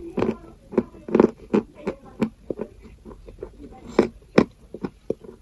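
Close-up crunching of chalk being bitten and chewed: a run of sharp, irregular crunches, with the loudest two about four seconds in.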